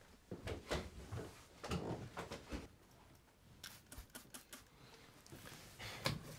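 Faint, irregular taps and rustles of household cleaning, with short hissing squirts from a trigger spray bottle.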